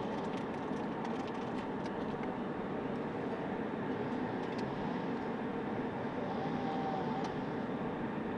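Steady car engine and road noise.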